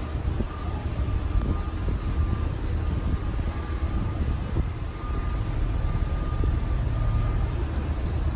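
Wind buffeting the microphone in a low, uneven rumble, with a faint steady high whine that comes and goes.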